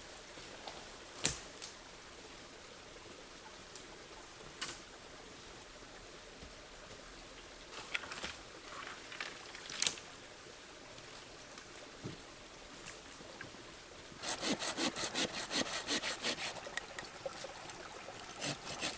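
Small hand saw cutting through wood in quick, even strokes, about four or five a second for roughly three seconds near the end. Before that come scattered sharp snaps and knocks of wood being handled, over the steady trickle of a stream.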